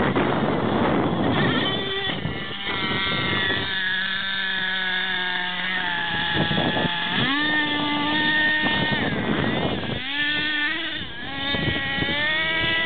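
Small glow-fuel (nitro) engine of a Thunder Tiger MTA-4 radio-controlled monster truck, revving up and down in high, rising and falling whines. Around the middle it holds steadier pitches for a few seconds before revving again.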